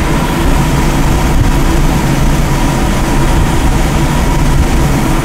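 Sonofresco 1 kg fluid-bed coffee roaster running: the steady rush and hum of its hot-air blower and gas burner, with no cracking heard, in the stall between first and second crack.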